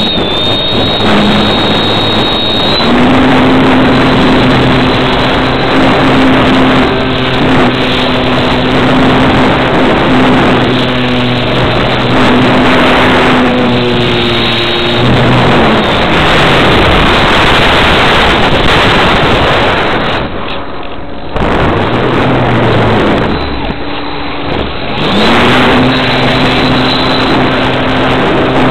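Parkfun Scout model airplane's motor heard from a camera mounted under the plane, running at a steady pitch over loud wind rush. About halfway through the pitch drops away and the motor is throttled back, leaving mostly wind for several seconds. Near the end it winds back up to full pitch.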